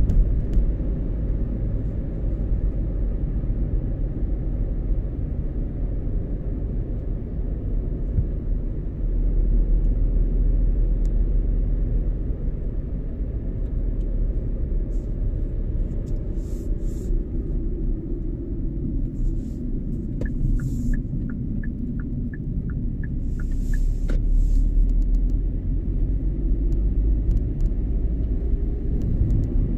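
Car driving along with a steady low rumble of road and engine noise. About two-thirds of the way through comes a short run of light, evenly spaced ticks, about three a second.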